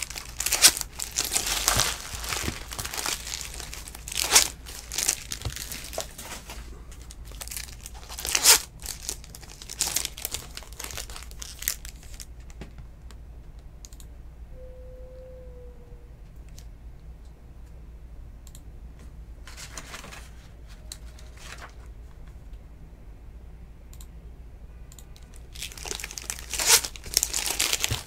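Foil trading-card pack wrappers being torn open and crinkled in bursts, with a quieter stretch of lighter handling in the middle.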